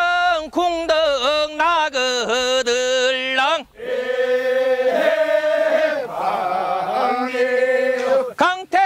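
Men singing a Korean rice-paddy weeding work song (nonmaeneun sori) as a drawn-out, wavering chant with long held notes. The voices break off briefly about three and a half seconds in and again just before the end.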